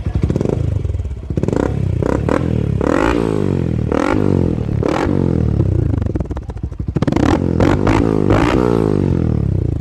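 Yamaha Sniper 150's single-cylinder four-stroke engine, breathing through an aftermarket Exos X6 exhaust, revved hard in repeated throttle blips. The pitch rises and falls with each blip, and the revs dip back briefly about two-thirds of the way through.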